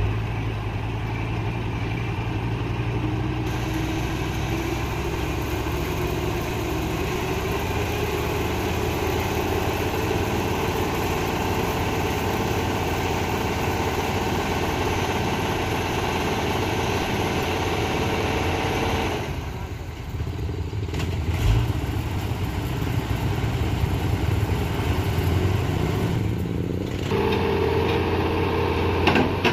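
Diesel engine of a crane tow truck running steadily while driving its winch to pull a truck out of a ravine, with one low thump about two-thirds of the way through.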